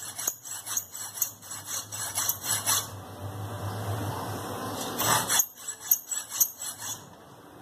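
Hand hacksaw cutting a small piece of metal clamped in a bench vise: quick back-and-forth rasping strokes, about three a second, easing off around the middle, then picking up again and stopping near the end.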